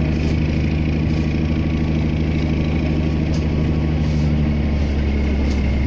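Heavy wrecker tow truck's diesel engine running steadily while its boom and winch cable hold the crashed tractor-trailer. The engine note shifts a little about four and a half seconds in.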